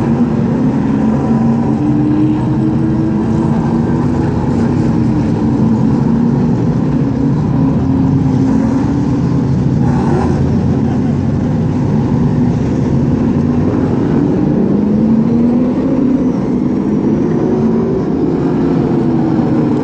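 A field of limited late model stock cars racing together, several V8 engines running hard at once, their pitch rising and falling as the cars pass and work through the turns.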